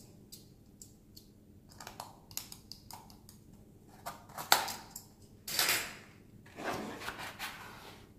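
A small product box being opened and handled: scattered light clicks and taps, a sharper knock about four and a half seconds in, and two longer sliding, scraping sounds of packaging.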